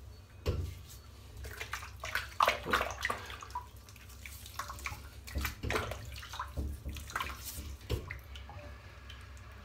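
Water splashing at a sink as hands scoop it up to rinse shaving-soap lather off the face, in irregular splashes.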